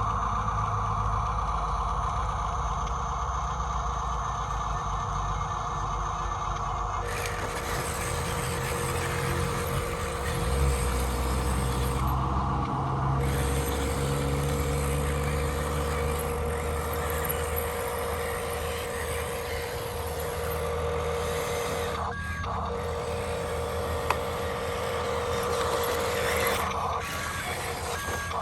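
Radio-controlled construction machines running: electric motors and gearboxes whining steadily, the pitch shifting every few seconds as the machines change speed or start a new movement.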